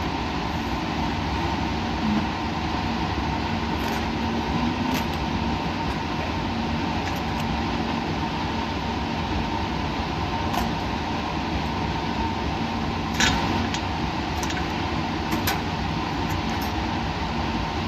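Steady mechanical hum and hiss of laboratory machinery, with a low steady tone and a higher one running under it. A few faint clicks and clinks break in, the loudest about 13 seconds in.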